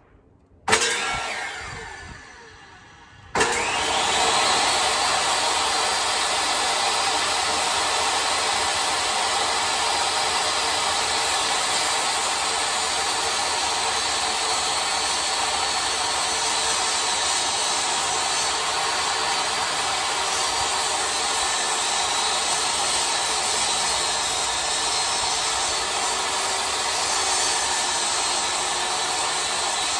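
Portable jobsite table saw: the motor starts about a second in and dies away, then starts again about three seconds in and runs steadily while a long sheet of plywood is fed through the blade.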